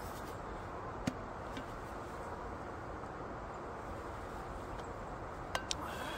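Steady outdoor hiss with a few small clicks from handling an insulated drink tumbler: one about a second in and two close together near the end.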